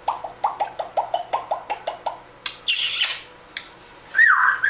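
African grey parrot making a rapid run of short clicking chirps, about six a second, for about two seconds, then a brief hiss. Near the end comes a loud whistle that rises and falls.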